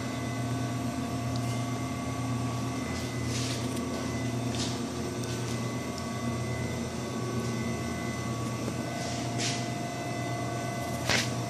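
A steady electrical hum of running equipment, with several steady tones layered in it and a few faint clicks.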